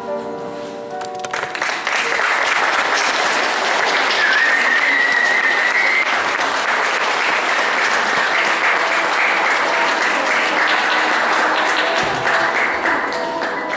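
Audience applauding and cheering, swelling in about a second and a half in, with one shrill held note rising out of it around four seconds in. The vaulting freestyle music is heard at the start and comes back through the clapping near the end.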